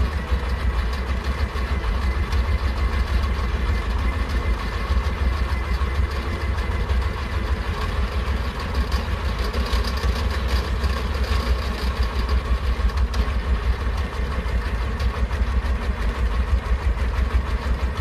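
Kamco power tiller's single-cylinder diesel engine running steadily while driving along, a fast, even low chugging.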